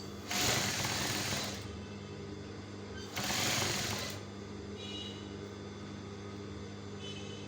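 Electric sewing machine stitching in two short runs of about a second each, with a steady motor hum between them.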